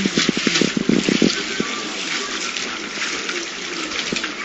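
Water rushing and sloshing in a concrete irrigation canal, a steady churning rush, stirred into waves by earthquake shaking. A quick run of low knocks sounds in the first second or so.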